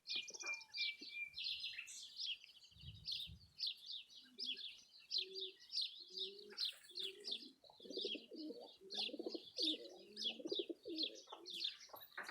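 Small birds chirping in quick repeated high notes, with a dove cooing in low repeated phrases through the second half.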